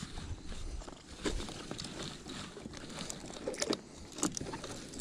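Irregular light clicks, knocks and small rattles of gear and water around an inflatable paddle board, a few sharper clicks standing out over a low rumble.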